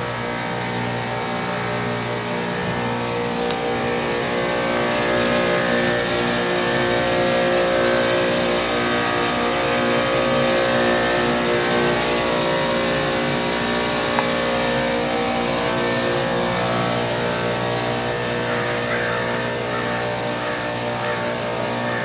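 Carrier WeatherMaker 50TCQD 12.5-ton rooftop heat pump running in its defrost cycle: a steady machine hum made of several held tones over a hiss, swelling slightly in the middle. The frost on the outdoor coil is melting off.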